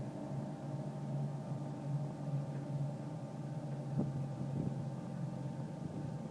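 Wells Wellcutt water-cooled stone saw running with a steady mechanical hum of fixed tones, sawing sandstone masonry blanks. A brief knock comes about four seconds in.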